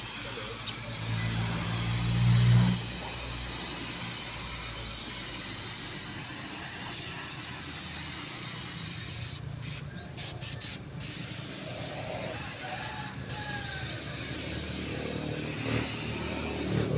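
Gravity-feed paint spray gun hissing steadily as it sprays paint with compressed air. The hiss cuts out briefly several times a little past halfway, as the trigger is let go between passes.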